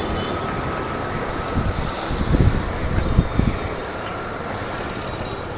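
Road traffic noise: motor vehicles running nearby, with louder low rumbles in the middle.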